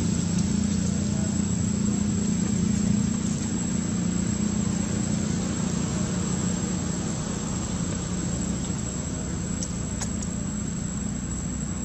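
A steady low engine hum, like a motor running at idle, with a thin high steady tone above it.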